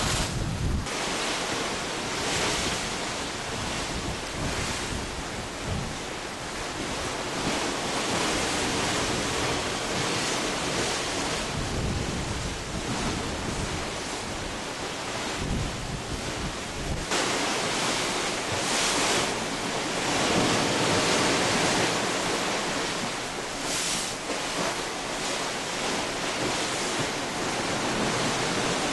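Steady rush of churning sea water from a moving cruise ship, with wind blowing across the microphone. A little past halfway the rush turns brighter and more hissing.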